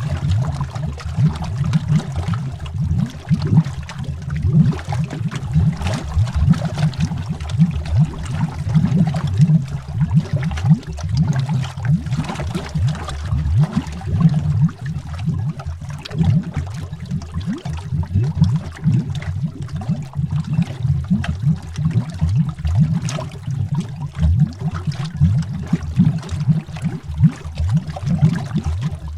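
Underwater bubbling: a continuous stream of air bubbles rising and gurgling, heard as dense low burbling with many small pops and no pause.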